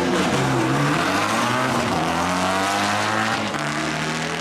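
Race car engine at full throttle, its pitch climbing and dropping back twice, as at gear changes while it accelerates down the track.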